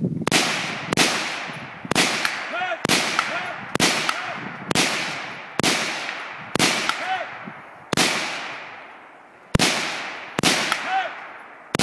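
Rifle fired in slow aimed shots from a barricade: about a dozen sharp reports, roughly a second apart at uneven spacing, each trailing off in a long echo. Several shots are followed by a short ringing tone.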